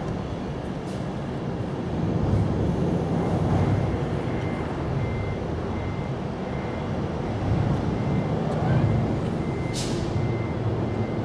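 A heavy vehicle's engine running, with a reversing beeper sounding a series of evenly spaced high beeps from about four seconds in, and a brief hiss near the end.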